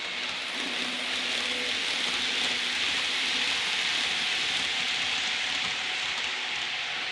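Model Virgin Pendolino train running past on model railway track: a steady hissing rumble of wheels on rails and motor that swells through the middle as it passes and eases off again.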